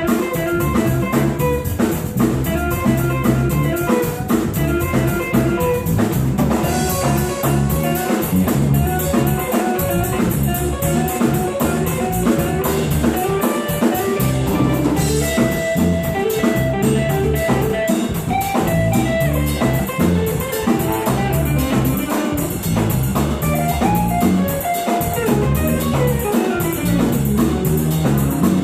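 Live rock band playing an instrumental passage: electric guitar notes over bass and a steady drum-kit beat.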